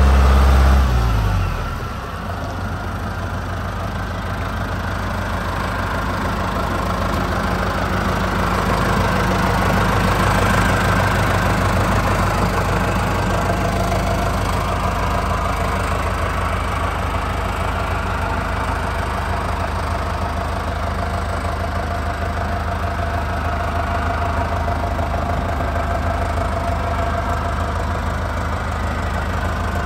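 John Deere 6520 tractor's diesel engine dropping from higher revs about a second in, then idling steadily.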